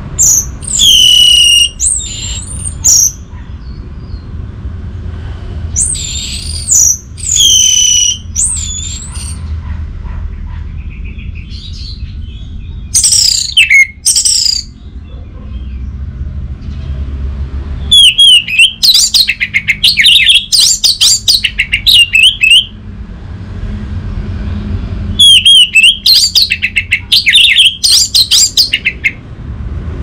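Orange-headed thrush singing: loud whistled phrases that slide up and down in pitch, then twice near the end a long run of rapid, stuttering notes, over a low steady background rumble.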